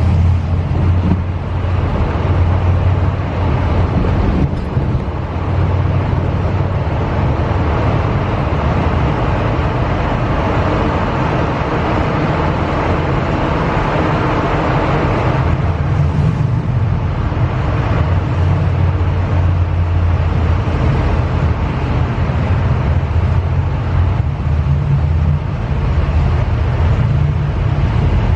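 Car cabin noise: a steady low engine and road rumble with tyre noise, heard from inside a car moving through a road tunnel. The road hiss grows in the middle and drops back about halfway through.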